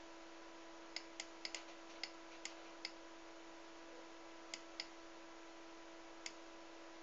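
About ten faint, sharp computer mouse clicks in an uneven run, most of them in the first few seconds, with a steady faint electrical hum and hiss beneath.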